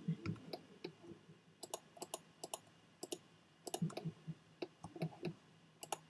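Irregular light clicking of a computer mouse and keyboard, several clicks a second at times, some in quick clusters.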